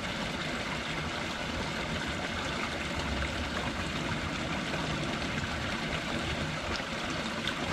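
Steady rushing noise with no distinct sounds in it, like wind or water outdoors, with a low rumble underneath.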